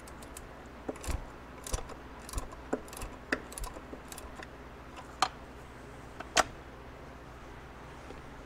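Light metallic clicks and clinks of a homemade case-splitter puller and socket being worked on a Suzuki TC125 engine crankcase as its halves are split apart. About a dozen scattered clicks over the first six and a half seconds, the two loudest a little after five and six seconds in.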